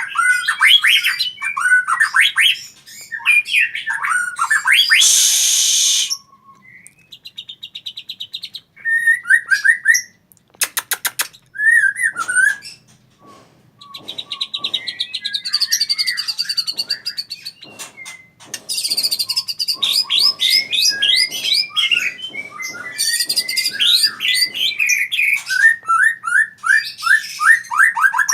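White-rumped shama singing: a varied song of whistled, gliding phrases, fast runs of repeated notes and a brief harsh rasp, with short pauses between phrases.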